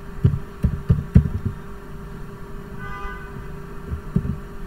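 Computer keyboard keystrokes: about five dull taps in quick succession in the first second and a half, then a single tap near the end, over a steady low hum.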